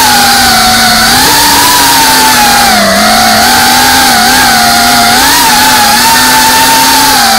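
FPV racing quadcopter's brushless motors whining loudly, heard from the drone's onboard camera. The buzz holds two pitches that waver up and down together as the throttle changes.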